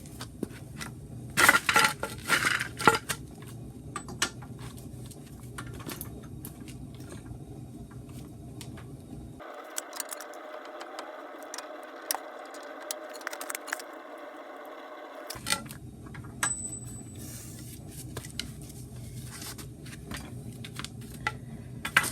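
Metal tools clinking and knocking: a breaker bar and socket working the front hub's axle nut tight. The loudest clatter comes a second or two in, with scattered clinks after it.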